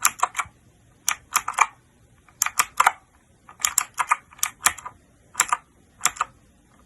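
Keychron K2 mechanical keyboard with clicky blue switches, keys pressed in short clusters of sharp clicks about once a second.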